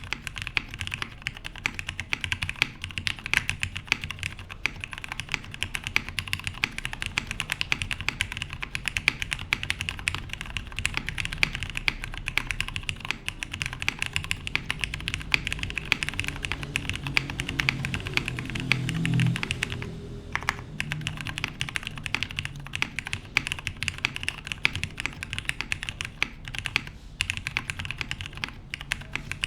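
Continuous fast typing on a plateless, PCB-mounted Jer 1813 mechanical keyboard with lubed Cherry "new" Nixie switches and GMK keycaps: a dense stream of keystroke clacks with short pauses about twenty seconds in and again near twenty-seven seconds. A low drone swells under the typing just before the first pause.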